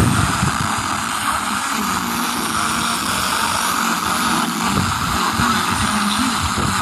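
FM radio receiver hissing with static on a weak or empty frequency, a steady even hiss with faint broken sound underneath. It starts and stops abruptly as the tuning changes.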